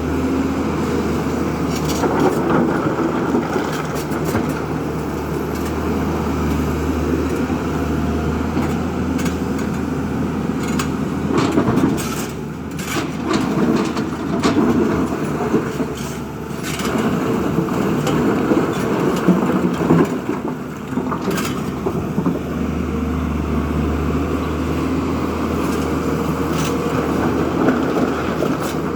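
Diesel engine of a JCB 3DX backhoe loader running under load as it works, a steady low drone that swells and eases, with scattered sharp knocks.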